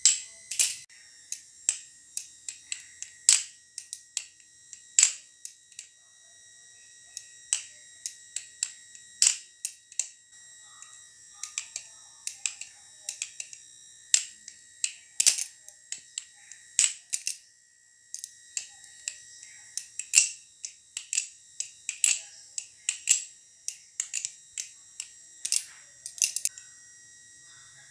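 Orange Kraken-clone balisong (butterfly knife) with a live blade being flipped: quick, irregular metallic clicks and clacks as the handles swing and strike each other. The clicks come in flurries, with brief pauses about six seconds in and again near the middle.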